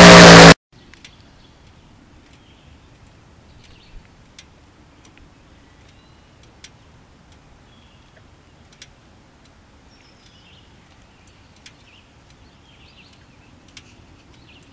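A loud burst of the motorcycle's engine, the 2009 Yamaha R1 crossplane inline-four, cuts off abruptly about half a second in. Then faint outdoor ambience by a pond: scattered bird chirps and occasional sharp ticks over a low steady rumble.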